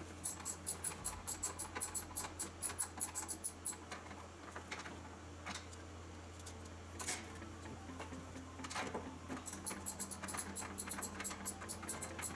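Ratchet wrench clicking rapidly, about eight clicks a second, in two runs with a few single clicks between them, while fasteners on the window regulator are turned.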